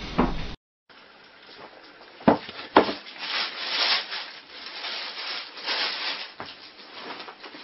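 Cardboard box scraping and rubbing on a wooden floor, with two sharp knocks a half second apart about two seconds in, then uneven scratching that swells and fades.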